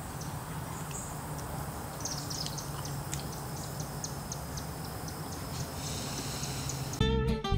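Outdoor ambience: steady background noise with a low hum, and short high chirps repeating through the middle. Near the end, acoustic guitar music cuts in suddenly and is the loudest sound.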